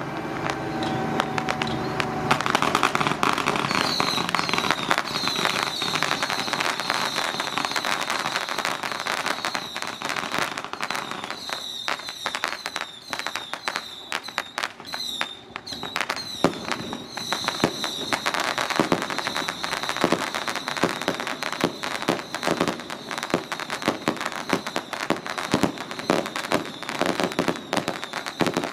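Strings of firecrackers going off, a dense, continuous crackle with a few louder bangs standing out.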